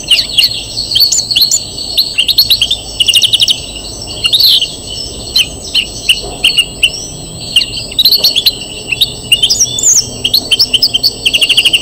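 European greenfinch singing: a near-continuous run of fast rattling trills and twittering chirps, broken by brief pauses.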